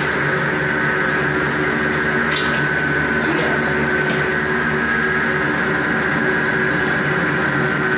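Semi-automatic noodle-making machine running steadily, a motor hum with a high whine over it, and a couple of faint knocks about two and four seconds in.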